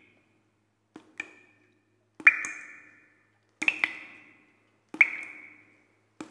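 A series of sharp pings, one about every second and a half, each with a short ringing tail.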